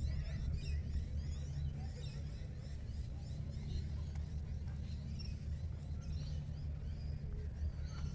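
Many small birds chirping and twittering over a steady low hum.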